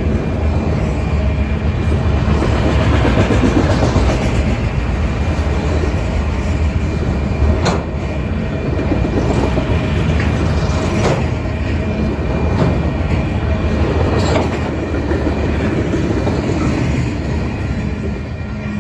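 Freight cars of a passing manifest train: a steady rumble of steel wheels on the rails with clickety-clack over the joints and a few sharp clanks, easing off near the end as the last car goes by.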